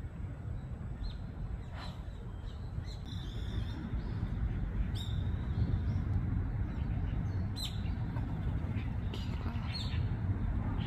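Small birds chirping, short high calls now and then, over a steady low rumble.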